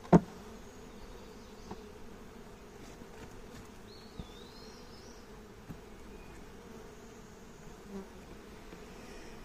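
Honeybees buzzing steadily as a low hum around an open hive. There is one sharp knock just after the start and a few faint clicks later.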